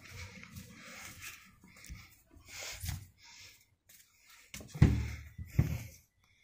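Handling noise from a phone camera being swung about: scattered rustles and soft knocks, with two heavy thuds about five seconds in.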